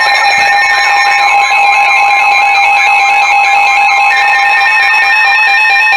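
Emergency Alert System attention signal: a loud, steady two-tone alert tone held without a break, sounding ahead of a broadcast severe thunderstorm warning.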